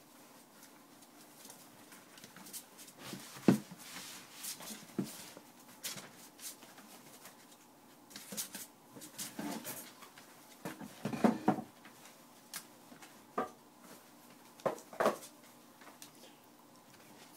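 Boston Terrier puppies moving about in a plastic kiddie pool: scattered short scrabbles and taps with a few brief puppy squeaks, the loudest about three and a half seconds in, then around eleven and fifteen seconds.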